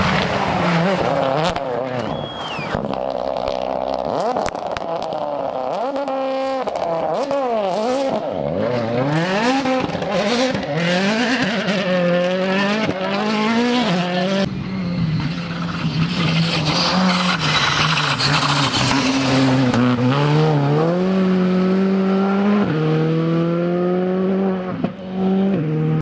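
Rally car engines at full throttle, the revs climbing and dropping again and again through quick gear changes as the cars pass. Sharp cracks come among them from about five to eleven seconds in.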